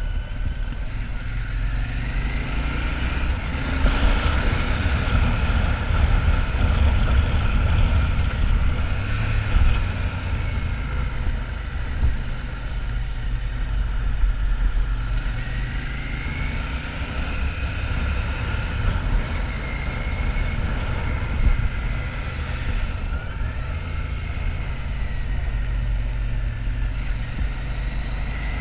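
A Royal Enfield Shotgun 650's parallel-twin engine running on the move, its pitch rising and falling several times with throttle and gear changes, over a heavy steady low rumble.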